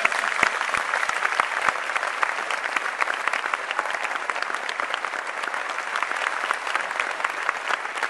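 Large audience applauding: a dense, steady clatter of many hands clapping, with a few louder claps close by in the first couple of seconds.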